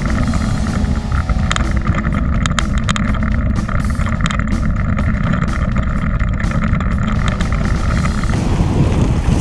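Mountain bike riding over a rocky gravel track: steady wind rumble on the camera microphone, with tyre crunch and rattling knocks as the bike goes over stones.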